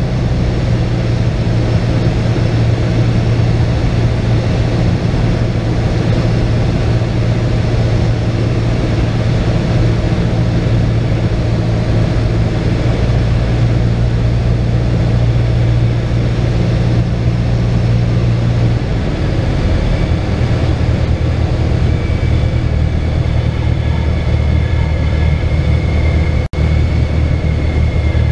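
Cessna 172's engine and propeller heard from inside the cockpit: a steady drone whose pitch steps down about two-thirds of the way through as the power comes back for landing. A high steady tone joins near the end, and the sound drops out for an instant shortly before the end.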